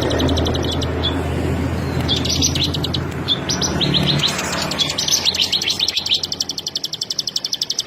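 Ciblek sawah, a small prinia, singing rapid trills of fast-repeated high notes in several short bursts from about two seconds in, with the last and longest trill running on. A low hum sits under the first few seconds.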